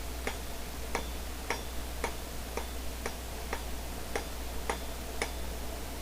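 Hand hammer striking hot steel round bar on an anvil in a steady rhythm of about two blows a second, each a short knock with a faint high ring, drawing out a taper.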